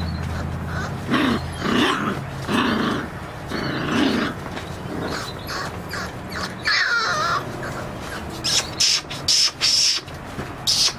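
A puppy barking: about four short, gruff barks in the first few seconds, then one short whine that falls in pitch. Several brief, scratchy high noises come near the end.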